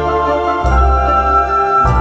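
Gentle background music with bell-like chimes over a steady bass line.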